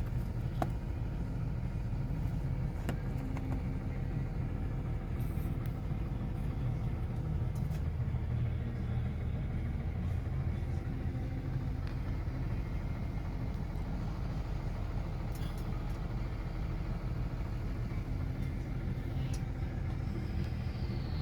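Steady low rumble of an idling engine, with a few faint clicks over it.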